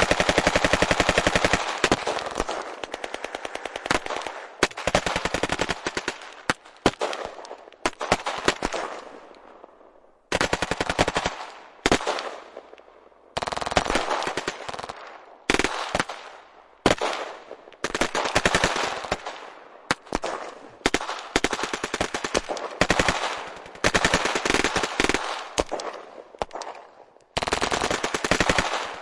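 Automatic gunfire in a string of long rapid-fire bursts, each trailing off in a fading echo, with short pauses between bursts.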